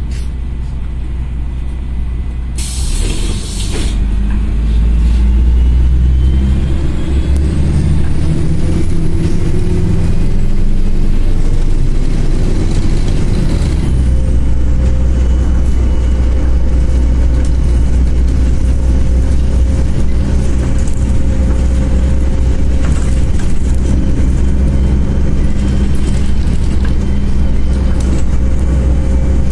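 MAZ 103 city bus heard from inside the passenger cabin: its engine running with a loud low rumble, and a short sharp hiss of air about three seconds in from the pneumatic brakes. The engine then pulls harder as the bus gets under way, with a rising whine that fades out at about the halfway point, and settles to a steady drone as the bus cruises.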